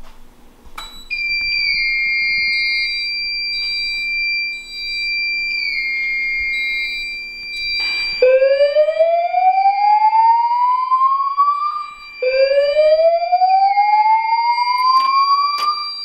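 Fire alarm system in alarm. About a second in, a steady high-pitched alarm tone starts. About eight seconds in, the Fire-Lite voice-evacuation whoop tone comes over the speaker/strobes: two slow rising sweeps of about four seconds each, the evacuation signal that precedes the spoken message, with the high tone still sounding underneath.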